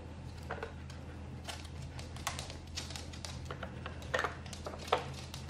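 Plastic pieces of a Trixie Dog Activity Flip Board clicking and clacking as a small dog noses and paws at its lids and cones: irregular light clicks, with two sharper knocks a little after four seconds and near five seconds.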